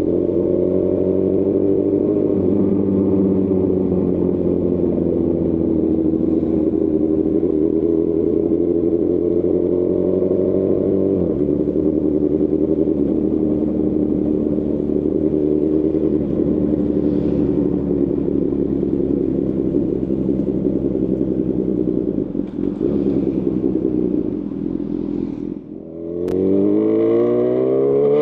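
2018 Honda CB1000R's inline-four engine through a Lextek CP1 full exhaust, running at fairly steady revs while riding. About 25 seconds in the throttle is shut and the sound drops away briefly, then the engine revs up hard under acceleration near the end.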